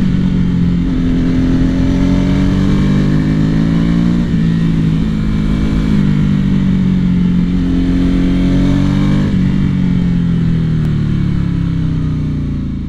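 Ducati Hypermotard 796's air-cooled L-twin engine with a Termignoni exhaust, heard from the rider's seat, accelerating through the gears. Its pitch climbs and drops back at each of a few shifts, then falls away steadily near the end as the bike slows, with wind rush underneath.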